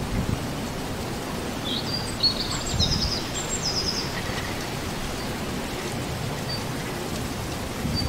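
Steady outdoor wind noise with a low rumble, and a songbird giving a quick run of high chirping notes starting about two seconds in and lasting about two seconds.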